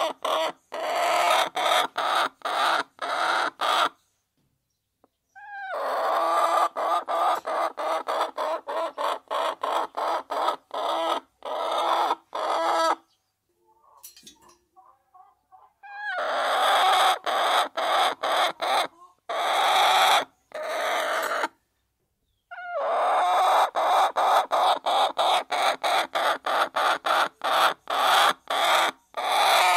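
A flock of hens clucking softly while pecking at feed, with quick sharp pecks clicking over the clucking. The sound comes in four stretches, each cut off abruptly by a second or two of silence.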